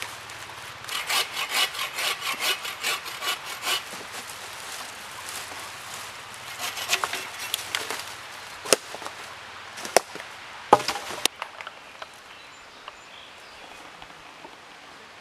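Hand saw cutting through wood in a quick run of rhythmic strokes for a few seconds. Later come a handful of sharp snaps and crunches of sticks and dry leaves.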